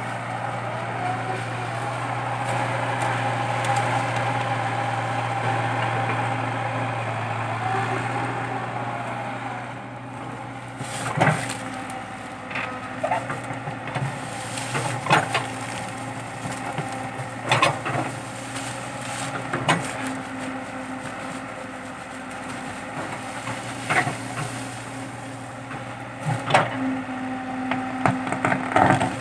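Komatsu PC80 excavator's diesel engine running steadily under load while digging out a eucalyptus stump. From about a third of the way in, the engine drops a little and about a dozen sharp cracks and snaps of splitting wood and roots break through it as the stump is torn out.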